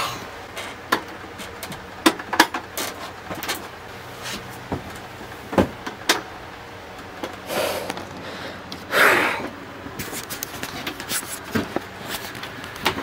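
Xpelair Taurus T10 desk fan overvolted from a microwave oven transformer at about 2,000 volts: a faint low hum with irregular sharp crackles and pops, the hum stopping about seven seconds in. Two short hissing bursts follow, the second, about nine seconds in, the loudest sound.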